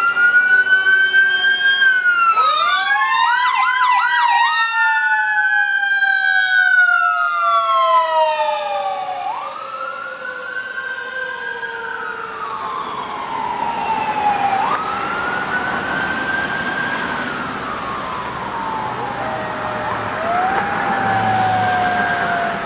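Fire engine sirens: an electronic siren wails in repeated sweeps, each rising quickly and falling slowly. A Federal Q2 mechanical siren winds up a couple of seconds in and then coasts down in a long falling whine. The sirens fade somewhat as the engine pulls away.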